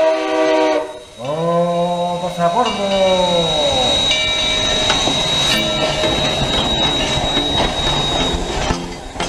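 Steam locomotive whistle blowing, breaking off about a second in, then a second blast that slides down in pitch. The locomotive and its cars then roll past with a rhythmic rattle and a thin high steady whine.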